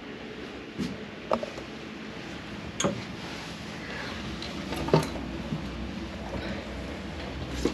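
About five sharp metallic clanks and knocks at irregular intervals inside a steel submarine hull, over a steady low hum.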